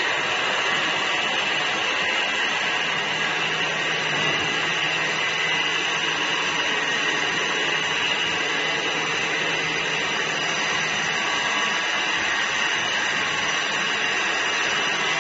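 Steady whirring of workshop machinery, an even noise with a faint steady hum, holding level with no breaks.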